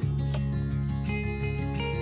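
Background music led by a strummed acoustic guitar, changing chord at the start.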